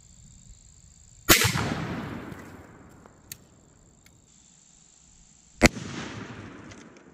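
Two 20-gauge shotgun slug shots about four seconds apart, each a sharp bang followed by a long echo that fades out over about two seconds.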